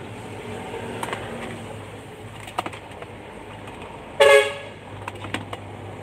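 A single short car-horn chirp, about a third of a second long, a little past the middle, from the car alarm being tested. A few faint clicks come before and after it over a steady low hum.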